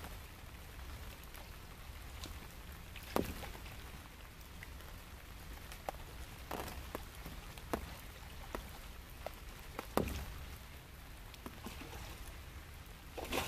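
Faint, scattered small splashes and drips of water as a hooked mirror carp wallows at the surface close to the bank, half a dozen or so short splashes spread over a low, steady background.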